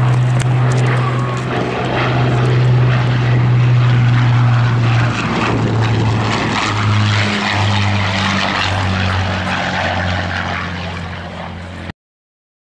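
Spitfire Mk I's Rolls-Royce Merlin V12 engine running as the aircraft flies past: a loud, steady low drone that drops in pitch about five seconds in as it passes, then fades and cuts off suddenly near the end.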